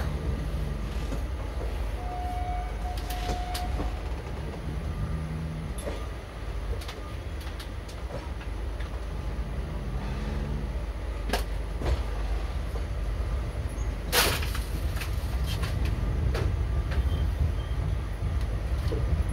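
ICF passenger coach running along the track, a steady low rumble with irregular knocks and rattles from wheels and running gear. One sharp clank, the loudest sound, comes about fourteen seconds in, and a faint thin tone is heard briefly near the start.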